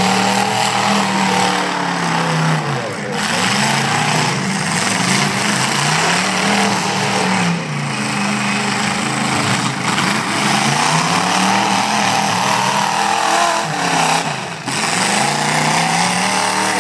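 Demolition derby pickup trucks' engines revving hard, pitch rising and falling over and over as they accelerate, back up and ram, with a few brief lulls.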